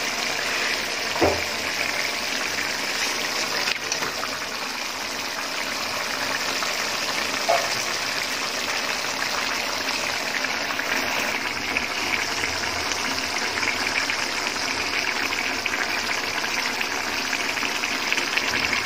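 Steady hiss of a pot of mung dal with rohu fish head and potatoes cooking on the stove, with a couple of brief knocks of the spatula against the pot.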